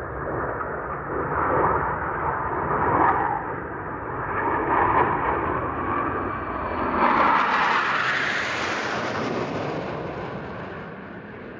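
Formation of Northrop F-5E Tiger II fighter jets flying past, the noise of their turbojet engines swelling and ebbing in waves. About seven seconds in it turns louder and more hissing, then fades as the jets move away.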